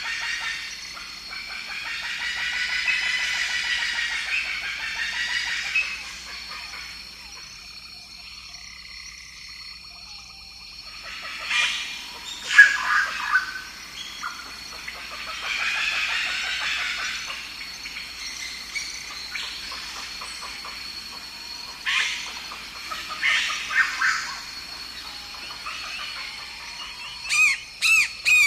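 Tropical jungle ambience: a steady high-pitched insect drone under swelling choruses of frog and bird calls, with sharp single calls in between. A run of rapid, evenly repeated calls starts near the end.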